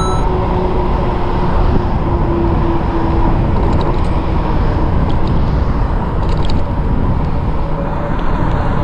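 Steady loud rush of wind buffeting the microphone, with road noise from a Rad Power RadRover 5 e-bike being ridden.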